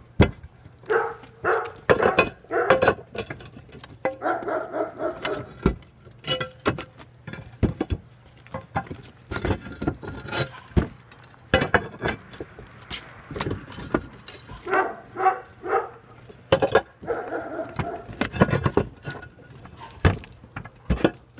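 Flat concrete roof tiles clacking and scraping against each other as they are picked up, stacked and set down, in quick clusters of sharp knocks, some with a short ringing tone.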